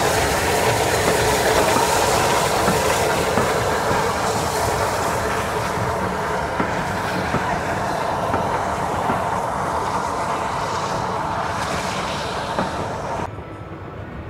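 Steam-hauled train of maroon coaches pulling out past the platform, the wheels clacking over the rail joints, the sound slowly fading. It drops off suddenly near the end.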